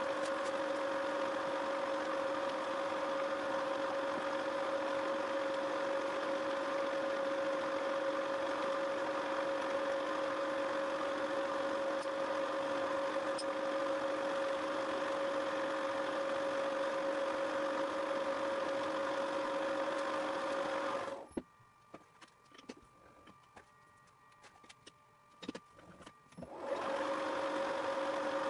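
Milling machine running with a steady whine as a countersink spins in a cross hole, breaking its edge. About 21 seconds in the machine sound drops away for about five seconds, leaving only faint clicks, then starts again near the end.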